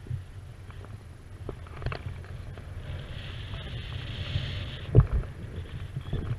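Wind rumbling steadily on a paraglider-mounted camera's microphone in flight, with a few short knocks and bumps, the loudest about five seconds in.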